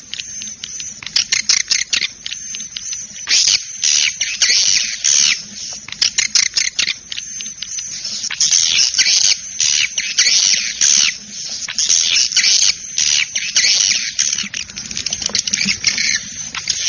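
Recorded swiftlet calls: many swiftlets twittering, with dense rapid high chirps and clicks in clusters of a second or so. This is a swiftlet call sound played to draw swiftlets into a nest house.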